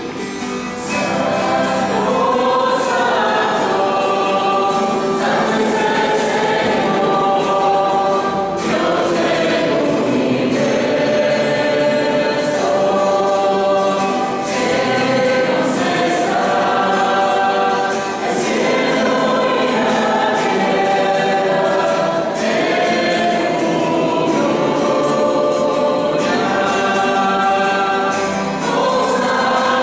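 A small church choir of women's and men's voices singing a hymn together, accompanied by an acoustic guitar.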